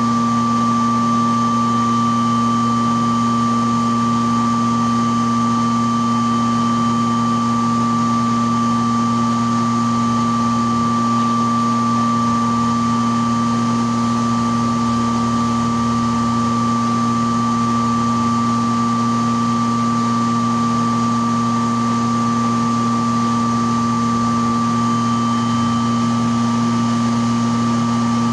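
Vacuum-forming machine running: a steady machine hum with a constant high-pitched whine that does not change.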